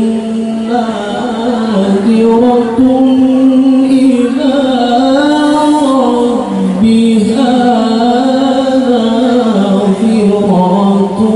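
A man recites the Quran in the melodic tilawah style into a microphone. He holds long, ornamented notes whose pitch rises and falls, in phrases of a few seconds separated by short breaks.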